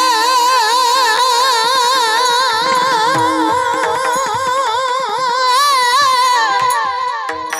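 A kirtan singer holding one long, very high note with a wavering vibrato for about seven seconds, then letting it fall away near the end, over a steady drone accompaniment.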